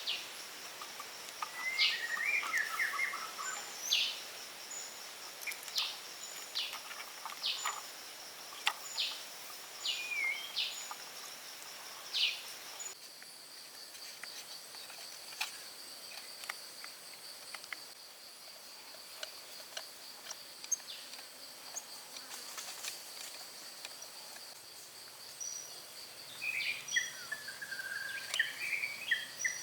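Outdoor ambience: birds chirping in short, repeated calls over a steady, high-pitched insect drone. The calls are busiest in the first half and again near the end.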